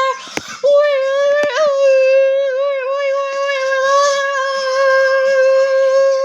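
A voice holding one long, steady hummed note with slight wobbles, broken once briefly about half a second in, imitating an emergency alert tone.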